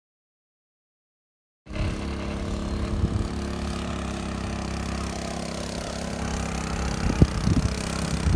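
Silence for about a second and a half, then a KT196 go-kart's small single-cylinder engine running steadily as the kart drives through pond water, with a few sharp knocks near the end.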